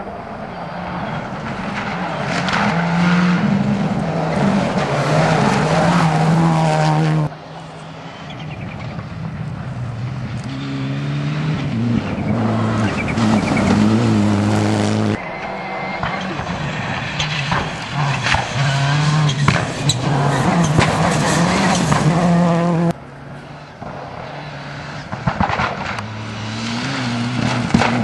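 Rally cars, Mitsubishi Lancer Evolutions among them, accelerating hard past on a gravel stage. The turbocharged four-cylinder engines rise and fall in pitch through the gear changes, over the noise of tyres on loose gravel. The sound cuts abruptly from one car's pass to the next three times.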